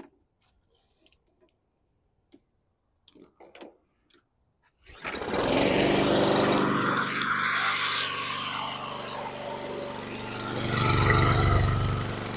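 After a few seconds of quiet, the mower's Briggs & Stratton 725EXi 163cc single-cylinder engine starts on a single pull, firing on an old rusty spark plug, and runs steadily, growing louder for a moment near the end.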